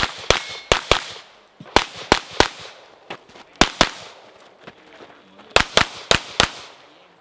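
Semi-automatic pistol firing a USPSA stage: about a dozen sharp shots, mostly in quick pairs (double taps) with short pauses between groups as the shooter moves to new targets, each shot trailing off in an echo.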